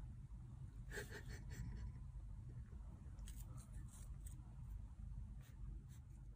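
Faint rustles and light clicks as a kitten bats at and handles a small blue toy in its paws, over a low steady hum of room noise.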